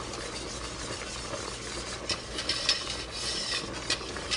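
Wire whisk stirring béchamel sauce (hot milk thickened with a roux) in a pot, the wires clicking and scraping irregularly against the pot, more often in the second half.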